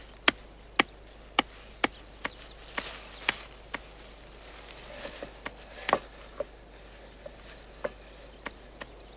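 Sharp chops of a blade cutting through leafy swamp plants on a board: about two a second for the first couple of seconds, then sparser and uneven, with the loudest chop a little before the middle.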